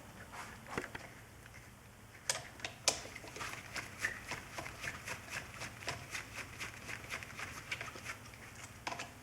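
Faint small clicks and taps of hand tools working on a car engine's cylinder head as fittings are undone. There is one click about a second in, then a steady run of light clicks, about two or three a second, from about two seconds in.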